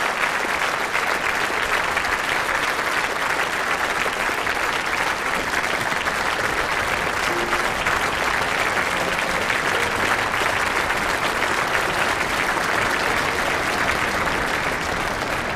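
A large concert audience applauding steadily, a dense patter of many hands clapping, easing slightly near the end.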